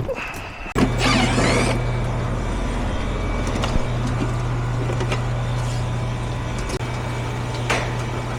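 Heat pump system starting up: a short loud rush about a second in, then a steady low electrical hum of the running unit.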